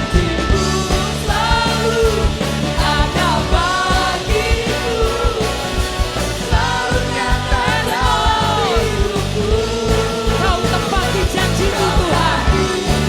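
Live church worship band playing a rock-style praise song, with a steady drum-and-bass beat under a wavering melodic lead.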